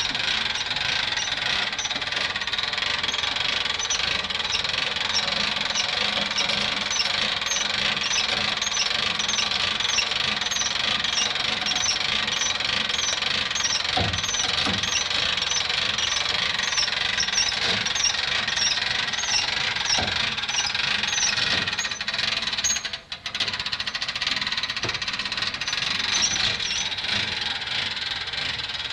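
A car being hauled onto a car trailer: steady mechanical noise with a regular clicking about twice a second, like the ratchet of a hand-cranked trailer winch. The sound briefly drops out about two thirds of the way through.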